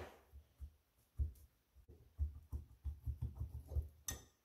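Faint knocks and scrapes of a DLTX 53 tractor carburetor being handled on a wooden bench as its rust-stuck float bowl is worked loose by hand, with one sharper click a little after four seconds in.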